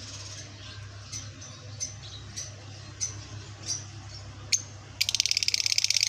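Caged Fischer's lovebirds chirping: a string of short, high single chirps about every half second, then a rapid, loud, buzzing chatter in the last second.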